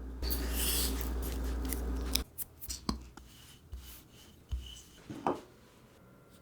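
Kitchen handling noise while making brioche: about two seconds of steady rubbing or scraping that stops suddenly, followed by a few light taps and clicks.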